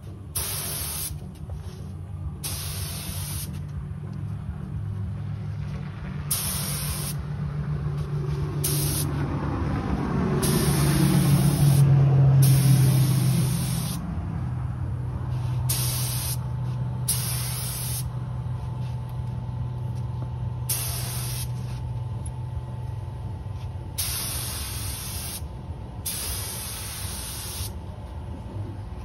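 Compressed-air spray gun hissing in repeated short bursts of one to two seconds as the trigger is pulled and released, spraying epoxy primer. Under it runs a low drone that swells to its loudest about halfway through, then eases off.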